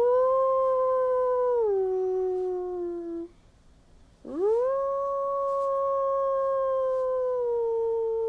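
Wolf cub howling: two long, clear howls, each swooping up and then held. The first drops lower partway through and stops after about three seconds. The second starts about a second later and slides slowly downward.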